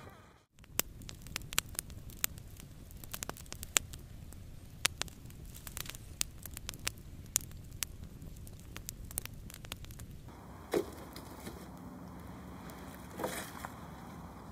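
Campfire crackling, with irregular sharp pops for about ten seconds. After that the background changes and a few softer knocks follow.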